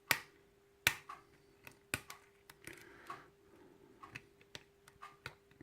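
Sharp metallic clicks and lighter ticks from a hook pick and tension wrench working the pins of a key-in-knob lock cylinder, probing for the one pin not yet set. The loudest clicks come about a second apart, with softer ticks between.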